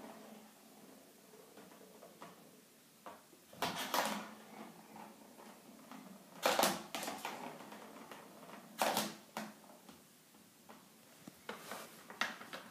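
Plastic ball-track cat toy clattering as a kitten bats the ball around its circular track, in four short rattling bursts with quiet stretches between them.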